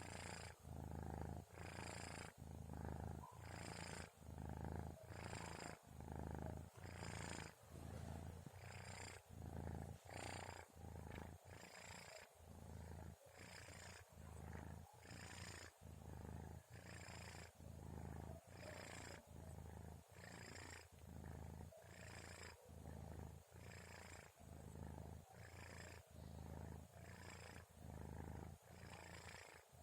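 Sleeping kitten purring: a steady low rumble that swells and breaks with each breath, about once a second. The uploader calls it snoring.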